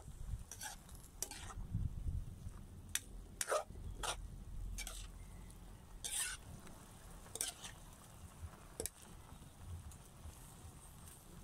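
A metal spatula scraping and knocking against a wok as chopped Chinese cabbage is stir-fried, in irregular strokes about a second apart.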